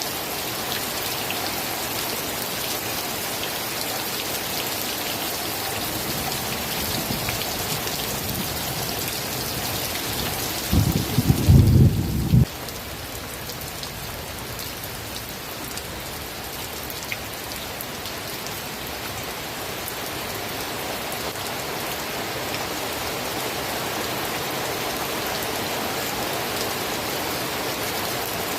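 Steady rain falling, an even hiss of drops. About eleven seconds in a short, loud, low rumble of thunder comes through and cuts off abruptly after under two seconds.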